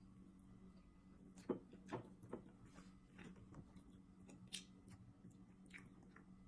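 Quiet eating sounds: chewing and a handful of sharp clicks of a metal spoon against a plate and a glass bowl, the loudest about one and a half seconds in, over a faint steady hum.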